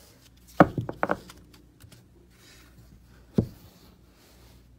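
Sharp knocks and taps from handling on a tabletop: one hard knock a little over half a second in, a quick cluster of two or three around one second, and a single knock past three seconds in.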